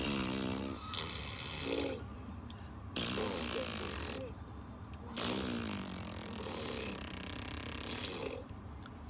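A baby blowing raspberries, buzzing his lips together in a voiced, fart-like noise, about five times in short bursts, over the steady low hum of the car's interior.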